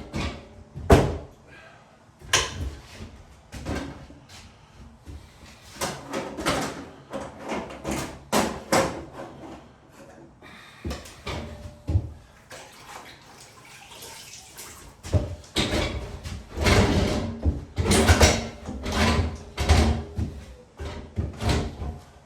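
Irregular knocks, taps and rustling from hands-on wallpapering work: paper, sponge and tools being handled and wiped against the wall, busiest about two-thirds of the way through.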